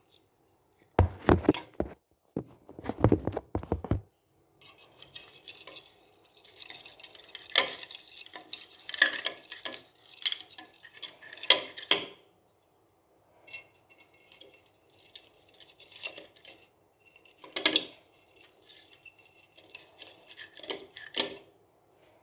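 Metal parts of a rice cooker's heating base clinking, clicking and rattling as wires are connected to it, in irregular clusters, with louder handling noises in the first few seconds.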